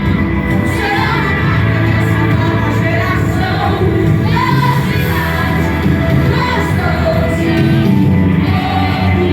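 Worship song playing: a singing voice over a steady band accompaniment with sustained bass.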